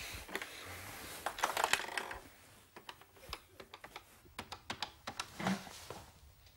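Rustling, then a run of quick, irregular light clicks as a corded desk telephone is handled and dialled.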